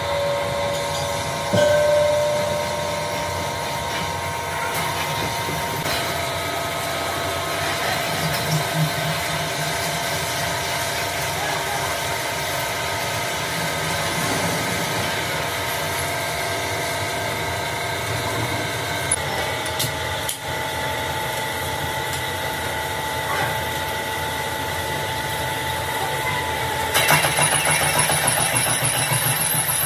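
Lathe turning a mild-steel truck wheel rim: a steady machine whine with several held tones that shift a few times. Near the end it grows louder, with a high-pitched squeal as the cutting tool works the metal.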